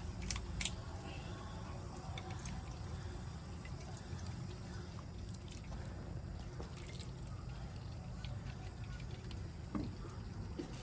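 A few light clicks and taps from small bottles and hands working in a large aluminium pot of layered biryani, over a steady low hum.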